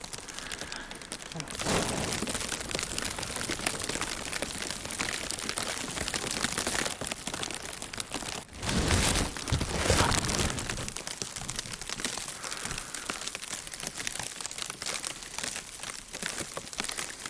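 Steady crunching and rustling of someone walking through snow, clothing brushing against the microphone, with a louder stretch about halfway through.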